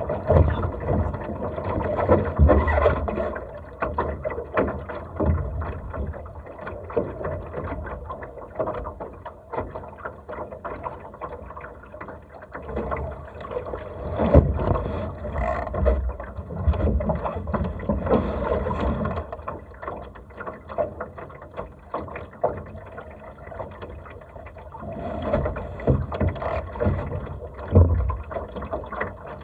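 Laser sailing dinghy moving through the water in light wind: water sloshing against the hull, with irregular knocks and rattles from the boat's fittings and gear, louder now and then.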